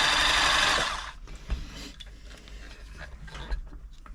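Toyota 2640 domestic sewing machine running at speed, its motor and mechanism whirring after being freshly oiled; it stops abruptly about a second in, followed by scattered light clicks and knocks of the machine being handled.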